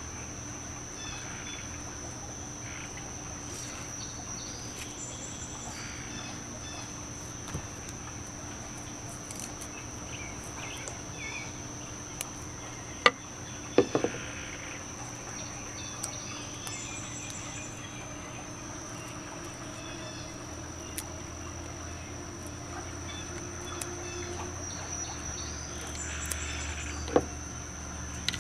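Steady high-pitched drone of insects outdoors, with a few sharp knocks about halfway through as a plastic blender cup is handled and set down on a table.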